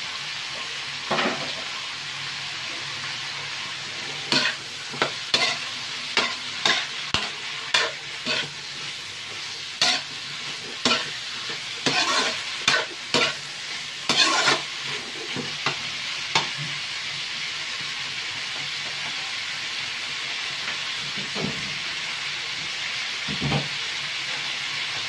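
Pork and long beans sizzling in a metal wok while a metal spatula scrapes and clanks against the pan. The sharp clanks of stirring come thick and fast up to about two-thirds of the way through, after which only the steady frying sizzle remains.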